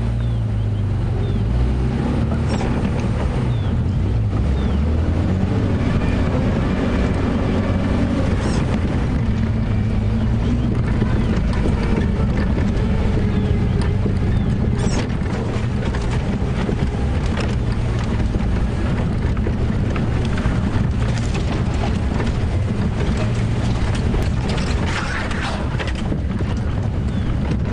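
Safari game vehicle's engine running at low speed as it drives off-road, steady throughout, with scattered knocks and rattles and wind on the microphone.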